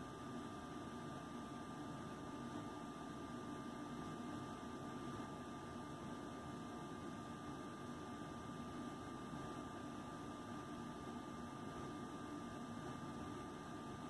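Steady room hum and hiss with a thin, even high tone running through it. No distinct sounds stand out.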